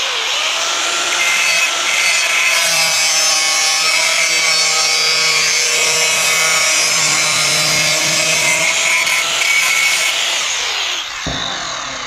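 Handheld angle grinder with a thin cut-off disc cutting through the sheet-steel cable tray, a loud steady grinding with the motor's whine over it. Near the end the cut finishes and the grinder spins down and fades.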